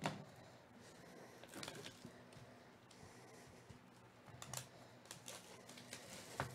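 Faint crinkles and taps of hands handling a cellophane-wrapped trading card box: a few short crackles at uneven intervals, a second or more apart.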